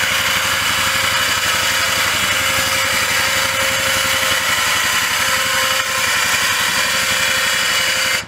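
Badlands 2500 lb ATV winch's 12-volt electric motor running under power, winding its cable through the fairlead with a steady whine that cuts off suddenly right at the end as the winch is stopped.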